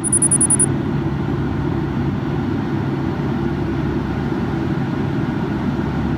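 Steady cabin noise of a jet airliner in flight: engine and air rush with a low hum. A short, high-pitched pulsing tone sounds at the very start.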